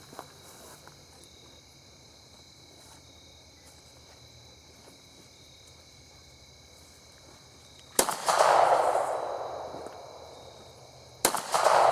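Two gunshots, the first about eight seconds in and the second about three seconds later, each a sharp crack followed by a long rolling echo that dies away over a couple of seconds. Before them, insects trill steadily in the background.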